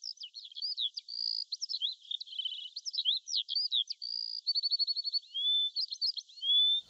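Songbirds chirping and whistling in a busy chorus of short notes and rising whistles, with a couple of quick rattling trills.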